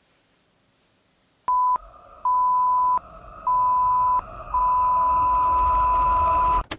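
A steady electronic beep tone sounds four times: a short beep, two longer ones, then one held about two seconds. Under it runs hiss and a low hum like old videotape static, and it cuts off with a sharp click.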